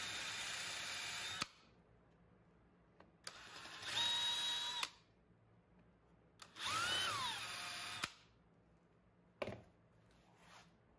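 Cordless drill with a counterbore bit boring counterbores into a wooden wall plate in three short runs. The motor whine rises in pitch as it spins up and falls away as the trigger is let go.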